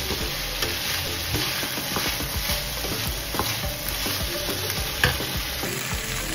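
Diced potatoes and sliced onion sizzling in margarine in a frying pan, stirred with a black plastic slotted spoon that scrapes and taps against the pan. There is one sharper knock about five seconds in.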